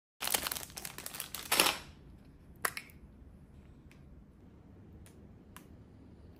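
Close-up handling of an acrylic paint tube and a small plastic cup: a loud crinkling, crackling rustle for about two seconds, then a sharp click and a few faint light taps.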